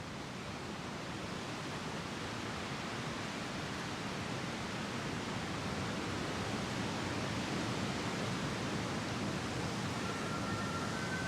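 Wind gusting through bare winter trees, a steady rush that slowly grows louder. Near the end a faint siren begins, alternating between two pitches.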